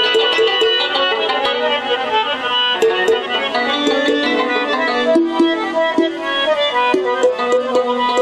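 Live Pashto folk music, an instrumental passage with no singing: a sustained, reedy melody over steady hand-drum strokes.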